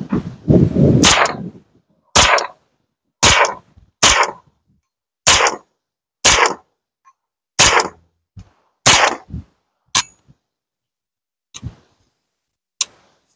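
Kalashnikov USA KR9 9mm direct-blowback carbine fired semi-automatically: about ten single shots roughly a second apart, with a longer pause near the end, each shot leaving a short echoing tail. The can on the muzzle is a fake suppressor, so the shots are unsuppressed.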